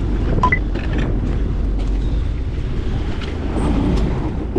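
Fishing ferry boat's engine running with a steady low rumble, wind buffeting the microphone over it, and a few faint clicks.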